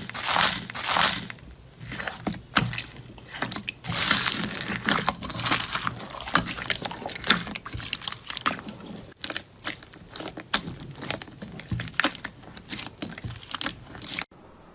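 Close-miked crunching and crackling from a crunchy slime or soap-style ASMR material being pressed or cut: many sharp cracks in quick, irregular succession. It cuts off abruptly near the end.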